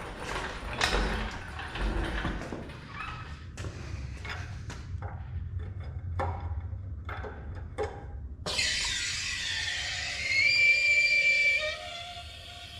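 Metal parts and tools clanking and knocking in irregular strikes, then, about two-thirds of the way in, a long scraping squeal of metal that fades out near the end.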